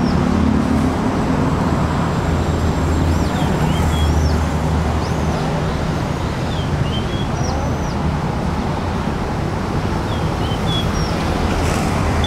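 Steady outdoor background noise with a low rumble, like distant traffic or wind on the microphone, with faint high chirps from small birds scattered throughout.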